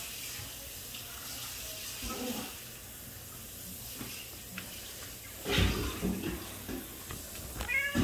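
Domestic cat meowing, a short meow about two seconds in and another near the end, with a loud bump about five and a half seconds in.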